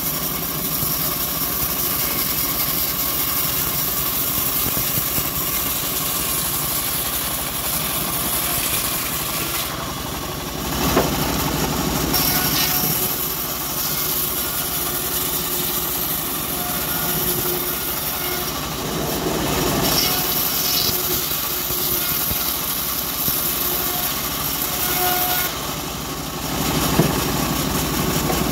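Home-built bandsaw mill running and ripping a long acacia log lengthwise. The loud, steady cutting noise eases off briefly about ten, nineteen and twenty-six seconds in, then picks up again as the blade bites back into the wood.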